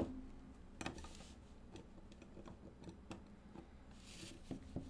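Faint clicks and taps of a clear plastic trading-card case being handled and set against its stand, with a brief sliding hiss of plastic about four seconds in.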